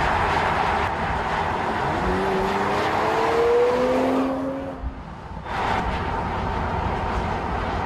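Mercedes-AMG CLS 53 driving on a road: steady tyre and wind noise, with its turbocharged inline-six engine rising in pitch as it accelerates from about two seconds in. The sound drops away briefly near the middle, then the steady road noise returns.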